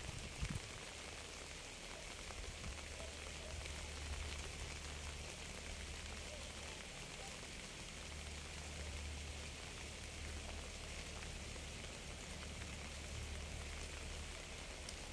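Steady rain falling, an even hiss with a low rumble underneath that swells slightly twice.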